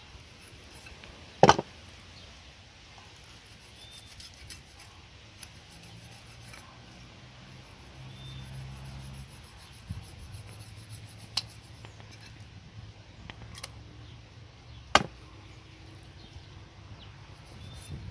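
Knife and pliers working on a wooden board while a stingray is skinned: scattered sharp knocks and clicks of the metal tools against the wood. Two are much louder, about a second and a half in and near the end.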